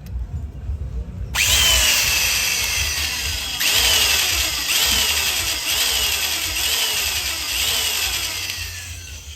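An electric drill boring an 18 mm hole through a steel wheel hub, starting about a second in. Its whine rises quickly and then sags in pitch about once a second as the bit bites into the metal.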